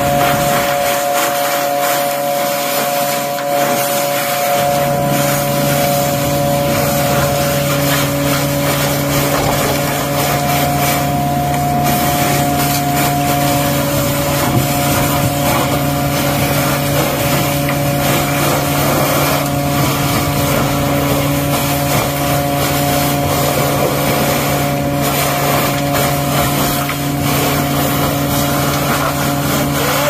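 Vac-Tron vacuum excavator running steadily, its suction hose drawing water and mud out of a catch basin: a loud, constant rush with a steady machine hum under it.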